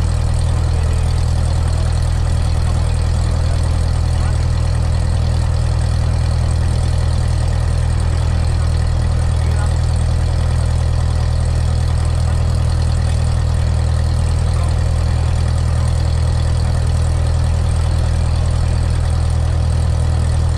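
Cessna 172S's four-cylinder Lycoming piston engine and propeller, heard from inside the cabin, running with a steady, unchanging low drone.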